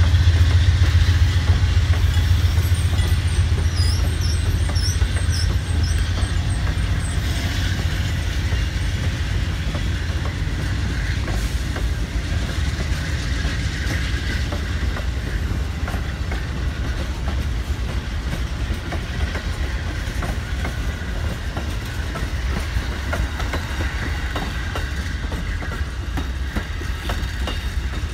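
Train cars rolling along the track: a steady rumble with wheel clatter on the rails. A deep low drone is strongest at the start and fades over the first several seconds. A short run of faint high chirps comes a few seconds in.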